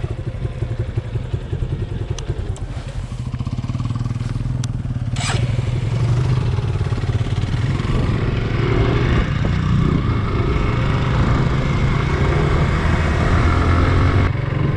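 Suzuki Gixxer 150 motorcycle being ridden, its single-cylinder engine running steadily, with a brief sharp click about five seconds in. Engine and road noise grow louder from about six seconds on.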